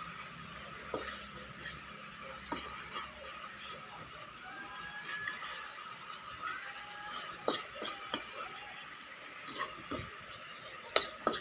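Chicken pieces bubbling in teriyaki sauce that is reducing to a sticky glaze in a metal pan, stirred with a spatula that scrapes and clicks against the pan. The sharpest clicks come in the second half.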